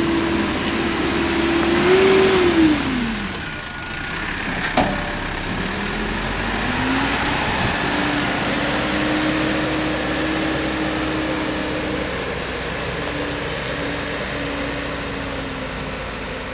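Caterpillar 426 IT backhoe loader's diesel engine running. About two seconds in the revs rise briefly, then drop sharply. A sharp click comes about a second later, then the revs climb back and hold steady.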